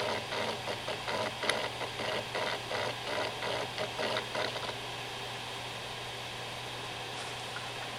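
Western Digital WD2500YS 7200 rpm hard drive running, its spindle giving a steady hum while the heads chatter in rapid rhythmic seeks, with one sharper click about one and a half seconds in. The chatter stops a little past halfway, leaving only the spindle hum. The drive is described as not very healthy anymore.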